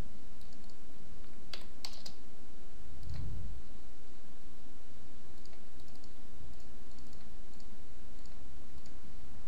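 Computer mouse clicks and keyboard typing: two sharp clicks about a second and a half in, then light, scattered key taps, over a steady low hum.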